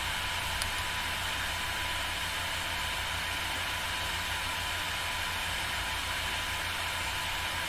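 Steady background hiss with a low hum and a thin steady high tone, with one faint click about half a second in.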